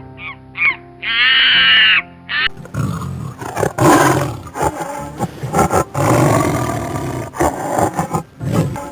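Background music with a few short harsh bird calls, then from about three seconds in a large animal roaring in several long, rough roars separated by brief pauses.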